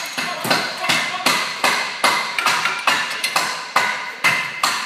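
Hammer blows on metal, struck steadily at about three a second, each ringing briefly.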